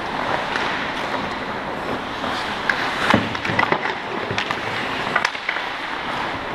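Ice hockey play: skates scraping the ice over a steady rink hiss, with a run of sharp stick and puck clacks from about two and a half to five seconds in.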